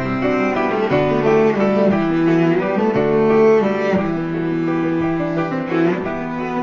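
Slow instrumental music of long, held bowed string notes, cello-like, each note sustained for about a second before the next.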